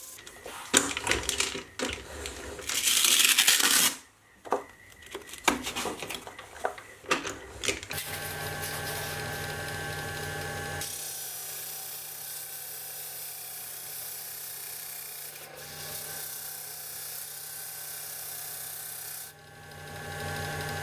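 Sieg C3 mini lathe running as a disc sander while steel vise jaws and their brass pins are ground against the spinning abrasive disc. In the first few seconds there are short rasping bursts and knocks, the loudest lasting about a second and a half. Then the motor runs with a steady whine under a continuous sanding hiss that lasts about eight seconds.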